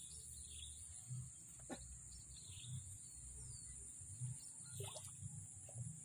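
Faint outdoor ambience: scattered short bird chirps over a steady high-pitched hiss.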